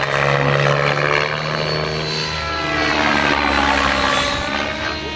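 Electric Align T-Rex 700E RC helicopter flying 3D manoeuvres: the motor whine and the swish of the main rotor blades. Their pitch bends up and down and the level swells and eases as the rotor loads and unloads.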